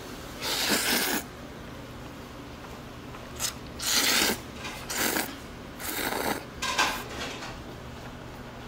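Eating sounds at the table: about six short, noisy strokes, each under a second long, with gaps between them.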